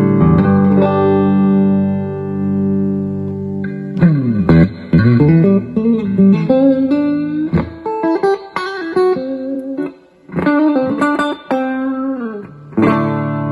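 Electric guitar played through a Marshall G80RCD 80-watt transistor combo amp: a chord rings out for about four seconds, then single-note phrases with slides and bends.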